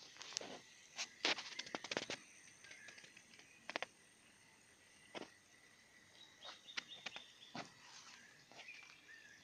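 Quiet outdoor ambience with scattered clicks and crackles, most of them in a cluster over the first two seconds, and a few faint bird chirps.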